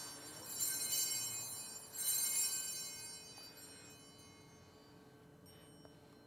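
Altar bells rung at the elevation of the chalice. They are struck about half a second in and again about two seconds in, and each ring is high and bright and dies away slowly.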